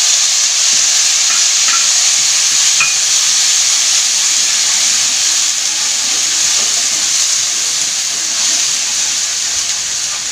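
Wet ground chayote (chow chow) chutney sizzling loudly in hot oil and tempering in a kadai, being sautéed to cook off its raw smell. The sizzle eases off slowly, with a few faint ticks in the first few seconds.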